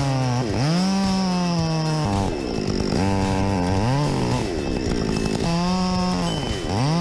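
Two-stroke chainsaw running at high revs, its pitch dropping sharply and climbing back several times as the throttle is let off and opened again.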